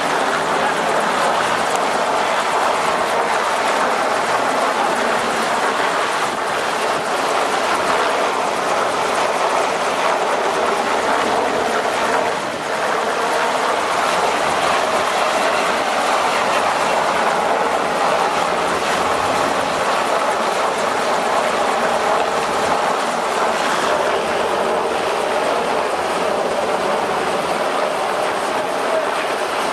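Helicopter rotor and engine noise: a loud, steady roar that does not change.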